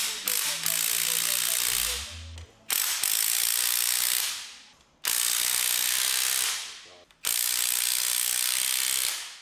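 Impact wrench run in four bursts of about two seconds each, driving down the spring compressors on a front strut to compress the coil spring.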